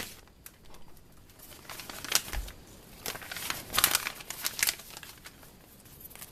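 Thin plastic polybag crinkling as it is handled, in a few short scattered crackles.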